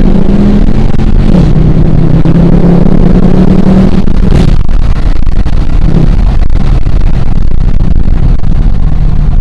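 Dodge Charger R/T's V8 engine running under way: a steady drone whose pitch dips a little after a second in and eases off about halfway through, under a loud rush of road noise.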